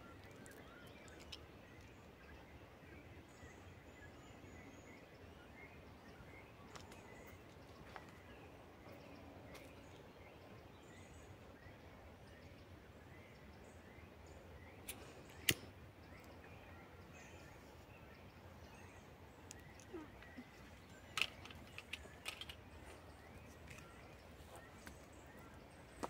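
Quiet woodland ambience: a faint steady hiss with scattered faint bird chirps. A few sharp snaps cut through it, the loudest about fifteen seconds in and a cluster more a few seconds before the end.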